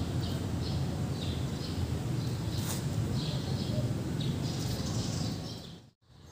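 Outdoor background: small birds chirping over and over above a steady low rumble of ambient noise, with one sharp click a little under three seconds in. Everything fades out briefly near the end.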